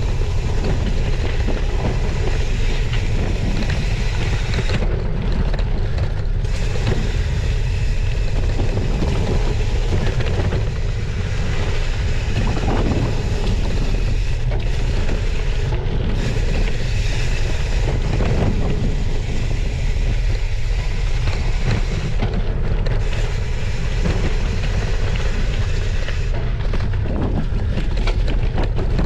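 Steady wind noise buffeting the microphone over the rolling noise of a gravel bike's 40 mm Maxxis tyres on a dirt trail, descending at speed, with small irregular knocks from the bumpy ground.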